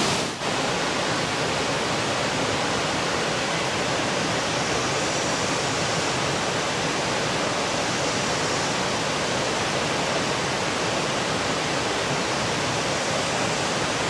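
Steady rushing roar of a large waterfall and the rocky stream below it, an even, unbroken noise, with a brief dip about half a second in.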